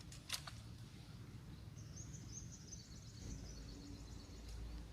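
Faint bird chirping, a quick run of high notes lasting a second or two, over low outdoor background noise, with a single click near the start.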